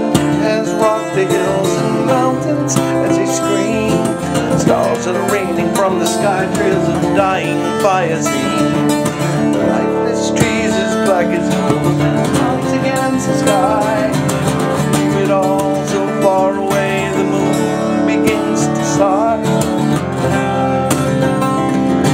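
Twelve-string acoustic guitar strummed continuously in an instrumental break, with no words sung.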